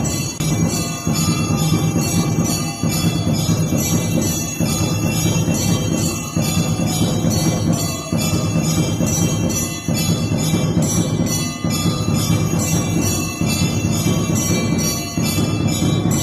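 Temple bells ringing rapidly and continuously with a regular pulse of strikes, over a dense, heavy low sound, like the bell-ringing of a temple aarti.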